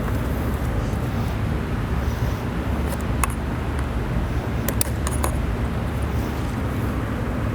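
A few sharp plastic clicks and rattles as motorcycle fuel-injector connectors and hoses are unclipped, over a steady low rumble.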